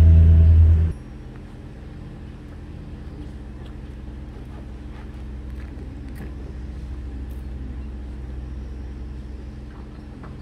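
Loud, bass-heavy background music cuts off about a second in, leaving a steady low mechanical hum with a few faint clicks and knocks.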